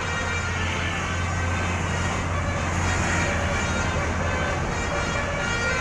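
Road traffic noise with a steady low engine rumble.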